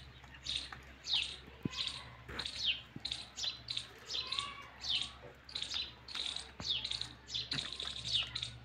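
Small birds chirping over and over, short high chirps that fall in pitch, about two a second.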